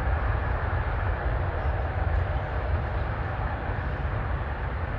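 Jet airliner engines running with a steady, even rumble that neither rises nor fades.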